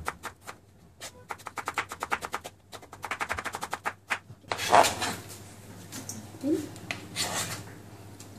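Knife slicing an onion on a plastic cutting board: quick knocks about eight a second in short runs. From about halfway, the blade scrapes the slices across the board into a bowl, a louder sweep followed by a few shorter scrapes.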